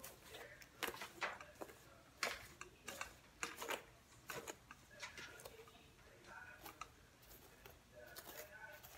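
Faint, irregular clicks and light swishes of a comb being drawn through a wig's hair on a mannequin head, several strokes in quick succession.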